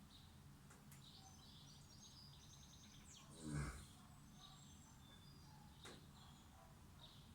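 A sleeping pet snoring: one snore about halfway through, falling in pitch. Faint bird chirps in the background.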